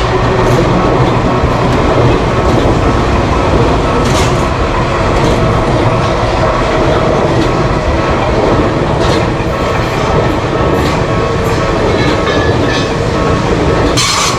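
Japanese electric commuter train passing: a loud, steady rumble with sharp clacks as the wheels cross rail joints.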